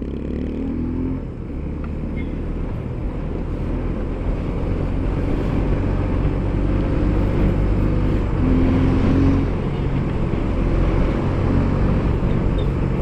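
Motorcycle engine and wind rush heard from a microphone inside a closed helmet as the rider speeds up; the noise grows slowly louder.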